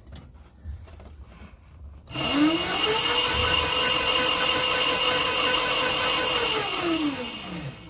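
Electric motor of a 24-volt, 350-watt electric dirt bike spinning its raised wheel on the throttle. A whine rises as the wheel speeds up about two seconds in, holds steady for about four seconds, then falls as it winds down and stops near the end.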